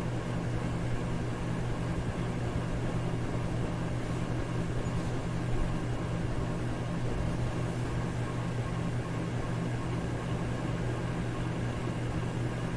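Electric fan running steadily, a constant rushing noise with a low motor hum under it.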